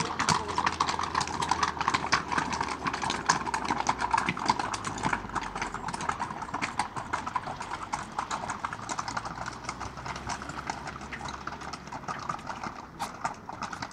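Several horses' hooves clip-clopping at a walk on cobblestones, with many overlapping hoof strikes that grow fainter as the horses move away.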